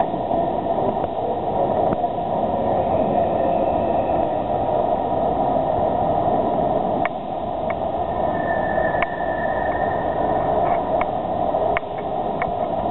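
Steady rumble and hum of trains in a large railway station, with several sharp clicks in the second half.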